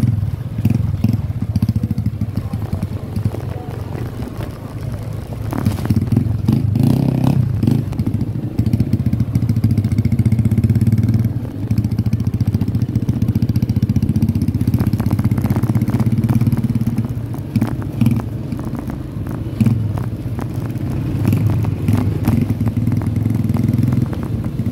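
Motorcycle engine running under way, heard close up from the bike itself, its note rising and falling with the throttle. Scattered clicks and rattles come through over it.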